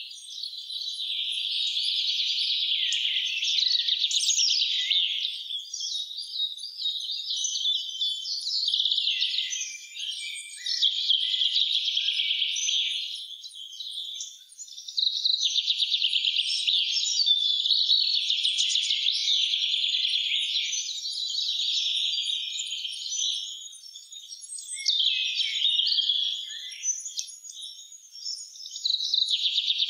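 Songbirds singing in a spring forest: long phrases of rapid, high trilling song that run almost without a break, with a few short pauses.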